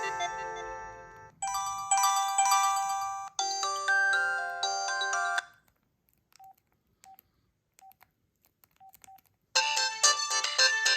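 Preloaded polyphonic ringtones on an LG LX150 mobile phone playing through its small speaker. Each short electronic melody stops abruptly and the next is played. About midway there is a gap of a few seconds with only faint short beeps, then a new, louder ringtone starts near the end.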